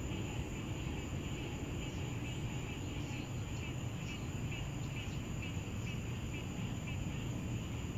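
Night insects chirping faintly and regularly, about three chirps a second, over a steady low rumble.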